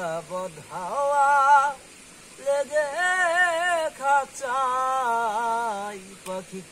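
A man singing unaccompanied, in several phrases with long held notes that waver in pitch.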